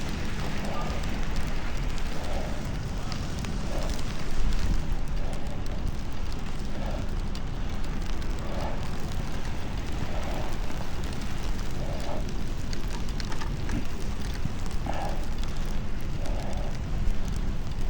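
Wind rushing and buffeting over an action camera's built-in microphone as a bicycle is ridden through a snowstorm, a steady deep rumble, with a faint soft sound repeating about every one and a half to two seconds.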